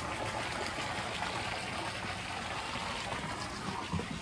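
Wood fire burning in a smokeless fire pit under a ceramic kamado dome, with an open vent: a steady rushing hiss of the draft-fed flames. There is a short bump about four seconds in.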